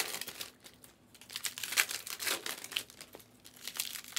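Plastic wrapping on a trading-card box crinkling as it is handled, in irregular bursts that are busiest around the middle.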